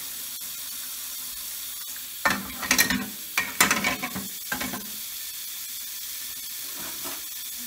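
Tap water running steadily into a stainless steel sink. From about two seconds in, a quick series of loud clanks and knocks for about two and a half seconds as metal electric stove burner parts are put down in the sink to soak.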